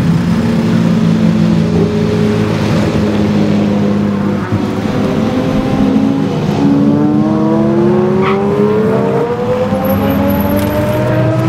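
A Lamborghini V12 engine running at a steady note, then accelerating, its pitch rising steadily through the second half.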